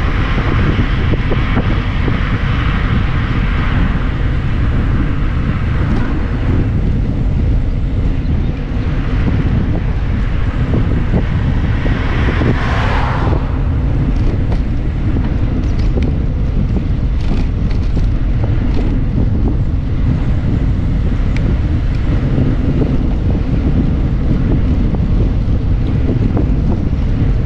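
Wind buffeting the microphone of a handlebar-mounted GoPro action camera on a moving bicycle, a steady loud low rumble. An overtaking car fades away in the first few seconds, and another vehicle rushes past about 13 seconds in.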